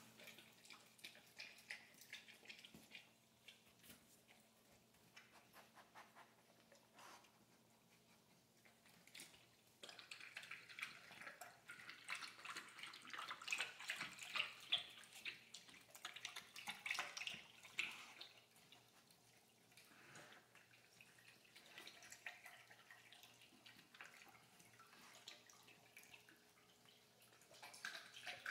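A Central Asian shepherd dog lapping water from an electric pet water fountain: a faint run of quick wet laps and splashes. The laps grow louder about ten seconds in and again near the end.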